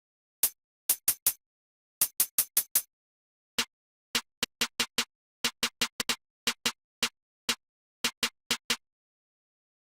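A lone drum-machine percussion sample from a trap beat, playing short, sharp hits in stuttering groups of quick repeats with gaps between, with nothing else sounding; it stops about nine seconds in.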